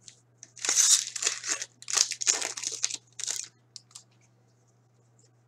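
Foil wrapper of a hockey card pack being torn open and crinkled, in several short crackling bursts over about three seconds.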